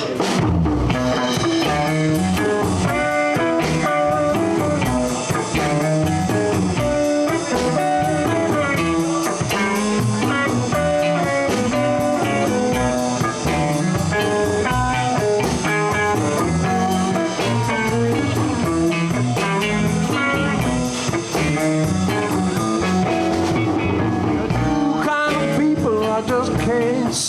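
Live blues band playing an instrumental intro, with electric guitar lead over bass and drums at a steady groove.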